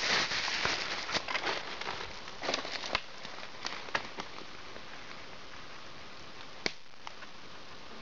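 Footsteps rustling and crunching through dry leaf litter and twigs, with sharp snaps and clicks, for about four seconds; after that only a faint steady hiss, with one more sharp click a little before the end.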